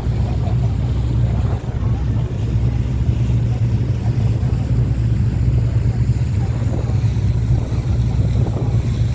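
Boat engine running steadily at cruising speed: a constant low drone with wind and water rushing over it.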